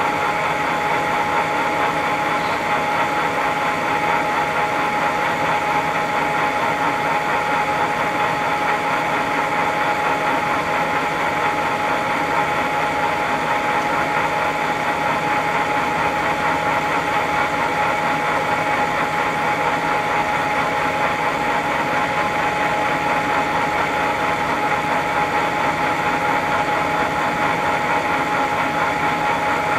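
Wilton 2035 geared-head floor drill press running, a steady mechanical hum with a clear high tone held throughout.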